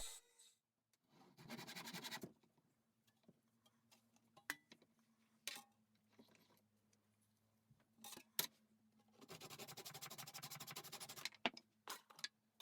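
Quiet workshop machining sounds over a faint steady hum: a short burst of scraping, a few scattered sharp clicks, then a couple of seconds of fast, evenly pulsing rasping that cuts off abruptly.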